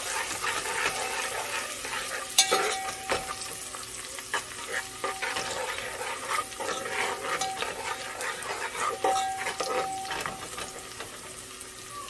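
Sliced onions with ginger and garlic sizzling in hot oil in a metal pot, stirred with a steel ladle that scrapes and clinks against the pot. A sharp clink about two seconds in is the loudest moment, and it and a few later clinks ring briefly.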